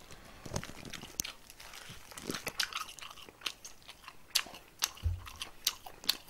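Close-miked eating of a yellow croaker's head: picking, crunching and chewing, with sharp crackling clicks that come thicker in the second half. A brief low thump about five seconds in.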